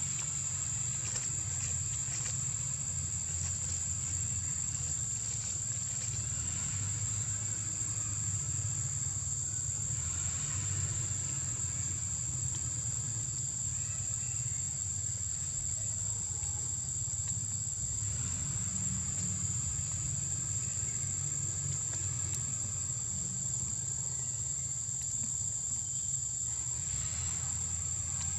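Steady high-pitched drone of insects calling in the forest, unbroken throughout, over a low steady rumble.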